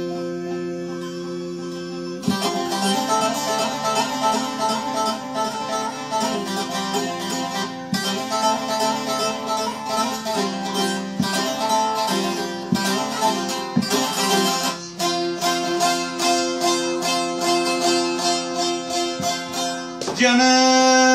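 Bağlama (long-necked Turkish saz) played with a plectrum in a fast, rhythmic instrumental passage of a folk song. A held note rings at the start, and just before the end a man's voice comes in with a loud held note.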